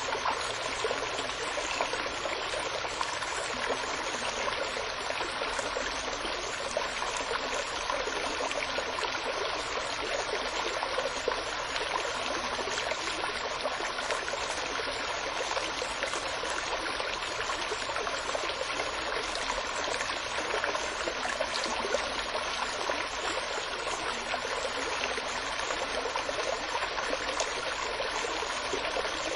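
Steady running water of a stream, an even splashing trickle with no let-up.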